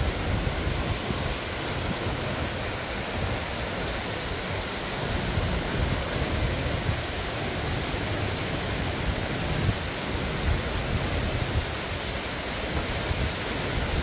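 Waterfall and the swollen, muddy stream below it rushing steadily: an even, unbroken noise of heavy water flow.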